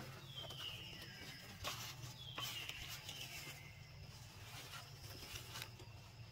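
Two faint, drawn-out whistle-like animal calls, each falling in pitch over about a second: one near the start, the second a couple of seconds later. A thin steady high tone runs behind them.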